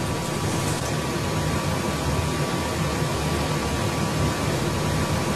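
Steady, even hiss with a low hum and a faint steady tone under it: the background noise of the room and the broadcast feed, with no speech.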